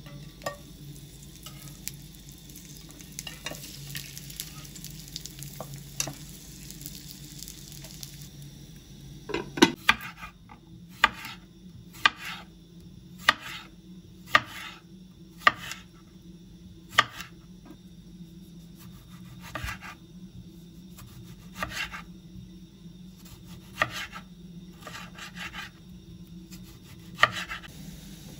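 Food sizzling in a pan over a steady low hum, then, about a third of the way in, a run of sharp kitchen-utensil knocks roughly once a second.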